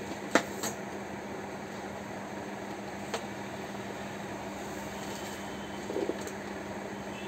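Steady background hum, with handling noise from the plastic mixer-grinder motor base being picked up and turned over: a sharp click about half a second in and a fainter one around three seconds in.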